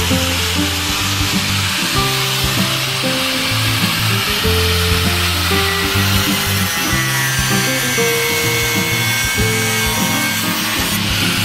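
Background music with a steady bass line over an angle grinder cutting through a seized steel radiator bracket fastener, a continuous high grinding whine.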